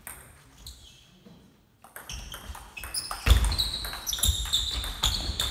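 Table tennis rally: the ball clicks sharply, in quick succession, off the bats and the table, starting about two seconds in.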